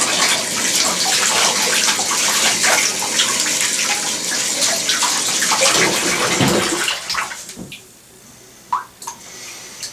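Water running from a bathtub faucet as a spoon is rinsed by hand under the stream. The faucet is shut off about seven seconds in, and a couple of light clicks follow.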